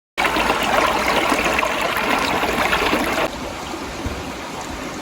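Steady rushing water, an even noisy wash that drops a little in level after about three seconds.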